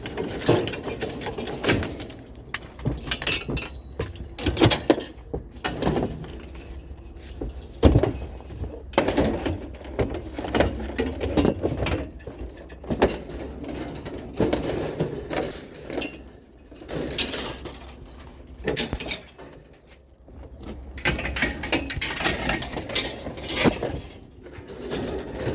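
Irregular knocks, clanks and rattles of curbside junk being picked up, handled and loaded, with one sharper knock about eight seconds in.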